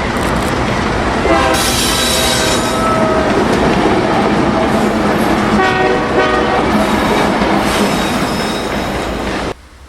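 Diesel-hauled freight train passing close by, with a steady heavy rumble of engine and wheels on rail. The locomotive horn sounds several times, around 1 to 3 seconds in and again about 6 seconds in. The sound cuts off abruptly near the end.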